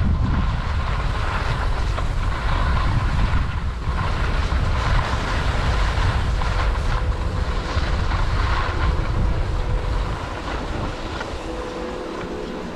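Wind buffeting the action camera's microphone and skis scraping and carving over packed snow during a downhill run. About ten seconds in the skier slows, the rumble of wind eases, and a steady machine hum from the chairlift base station comes in.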